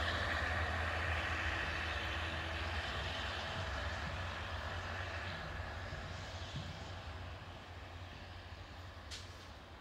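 A train moving away after passing, its low rumble and steady hum with a held whine fading out gradually.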